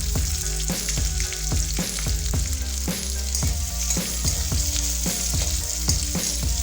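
Chopped onion and garlic sizzling in hot oil in a kadai, with a spatula clicking and scraping against the pan a few times a second as it is stirred. A steady low hum runs underneath.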